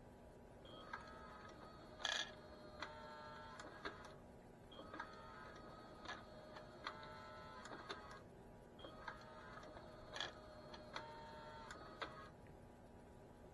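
K-Line operating milk car's unloading mechanism cycling, pushing milk cans out onto its platform: a repeating mechanical clicking and rattling, with a sharp click about every two seconds.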